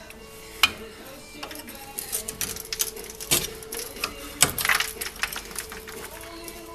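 Rapid metallic clicking and clattering, a single sharp click under a second in and a dense run of clicks and knocks from about two to five seconds in, typical of hand tools working on brake parts, over background music.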